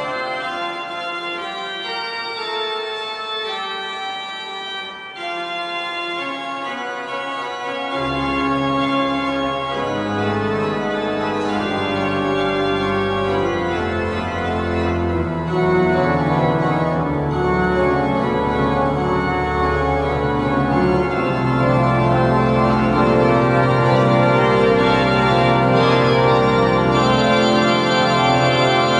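Church pipe organ playing an improvised postlude on a hymn tune in sustained full chords on the manuals. About eight seconds in, the pedal bass enters and the sound grows fuller and louder.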